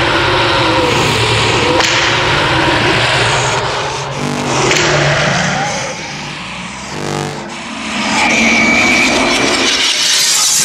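Abstract sound-design soundtrack: a dense, rumbling wash of noise with shifting tones. It dips in loudness about two thirds of the way through, then swells back with a steady high tone.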